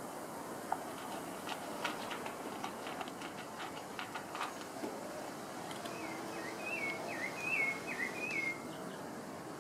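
Labrador eating dry kibble from a plastic bowl: scattered crunches and clicks over the first half. In the second half a bird sings a run of about six short whistled notes.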